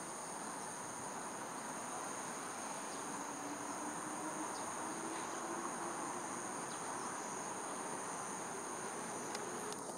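Insects chirring steadily in two high-pitched bands over a steady background hiss, with a faint, slowly rising whine in the middle.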